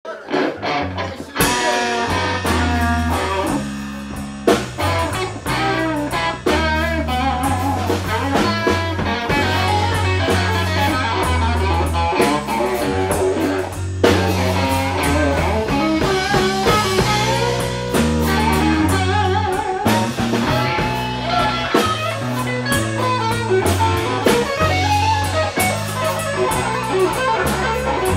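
A blues band playing an instrumental passage: electric guitar lead with bent, wavering notes over a bass line stepping between notes and drums.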